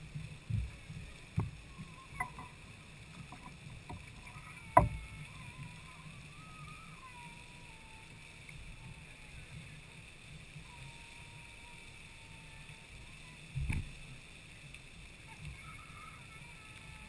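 Lady Knox Geyser erupting: a steady rushing hiss of its water-and-steam jet, broken by a few sharp knocks, the loudest about five seconds in and another near fourteen seconds.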